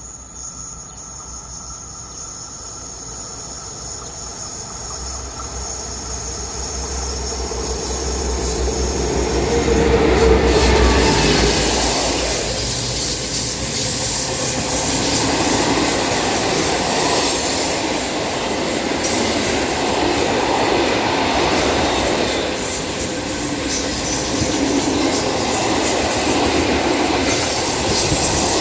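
Freight train of coal wagons, hauled by an electric locomotive and an ST44 diesel, approaching and passing close by. The sound builds to its loudest about ten seconds in as the locomotives go by, with a low hum. After that the wagons keep rolling past with steady wheel noise, clatter and squeal.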